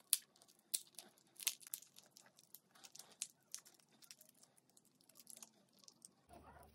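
Kitchen shears snipping through a raw lobster tail's shell, a scattered series of short, sharp crunches and cracks as the shell is cut and split open to lift the meat.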